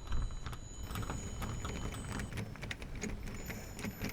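Rapid, irregular small clicks and light rattles of door-lock hardware being handled while a Phillips screwdriver works the knob's screws.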